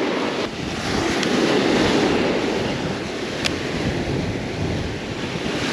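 Surf breaking and washing up the beach in a steady wash, with wind buffeting the microphone.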